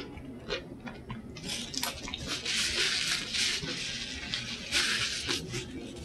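Paper napkin rustling as it is rubbed across the mouth, a hissy scrubbing for about two seconds midway and again briefly near the end, with small clicks and crunches of eating tortilla-chip nachos around it.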